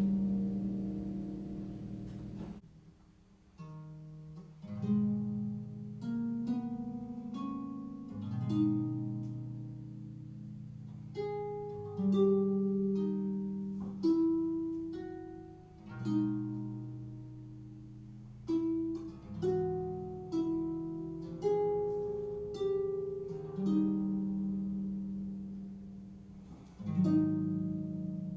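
Solo concert harp playing a slow, lyrical melody in plucked notes and chords that ring and fade. A held chord dies away in the first couple of seconds, there is a brief pause, and then the melody resumes.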